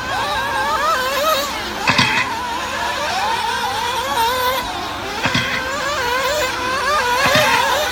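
Several nitro RC buggies' small two-stroke glow engines screaming at high revs, their pitches rising and falling as the drivers work the throttles around the track. A few sharp knocks come about two, five and seven seconds in.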